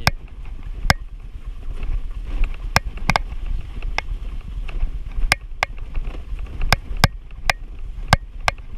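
Motor scooter ridden over a rough, rutted dirt trail: a steady low rumble with a dozen or so sharp, irregularly spaced knocks and rattles as it jolts over the bumps.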